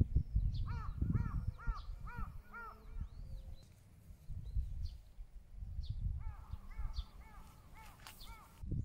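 A crow cawing in two runs of about six quick caws each, the second run starting about six seconds in, over a low gusty rumble of wind on the microphone.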